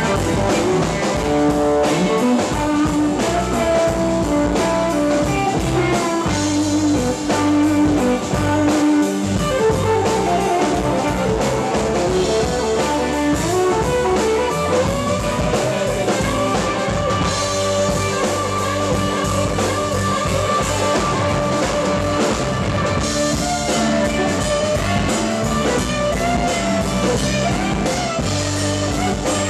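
Live rock band playing an instrumental passage with no singing: electric guitar lines over drum kit and keyboard.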